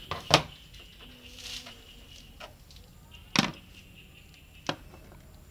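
Sharp clicks and knocks of a hand tool and the hood's gas strut being handled in the engine bay. A loud double knock comes just after the start, a strong one about three and a half seconds in, and a lighter one near the end.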